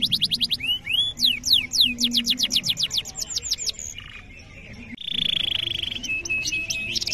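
Domestic canary singing: long runs of rapid, repeated falling whistled notes, a brief lull about four seconds in, then a fast buzzing trill and a string of short clipped notes.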